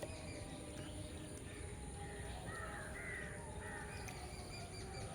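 Faint bird calls, a few short calls in quick succession around the middle, over a steady low background hum.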